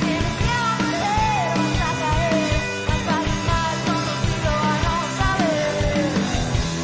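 Live rock band performance: drums, bass and electric guitars, with a sung or lead melody line over a steady beat.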